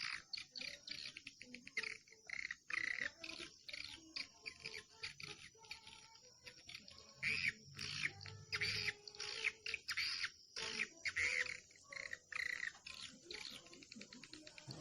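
Bird lure call recording: a bird calling over and over in short, harsh chirping notes, several a second in uneven clusters.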